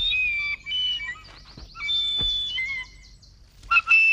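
A small toy pipe being blown unskilfully: high, wavering held notes that slide and step down in pitch, in several short phrases with gaps between them.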